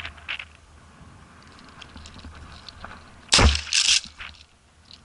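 A shotgun fired once at a flying dove about three seconds in, followed moments later by a second, higher-sounding burst of noise. Light rustling and clicks come before the shot.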